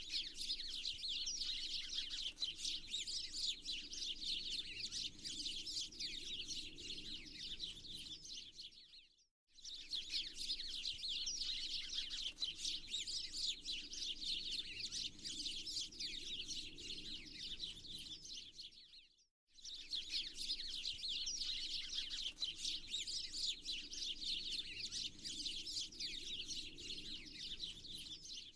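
A chorus of many small songbirds chirping and twittering rapidly. The sound cuts out completely for about half a second twice, roughly every ten seconds, as a short recording loops.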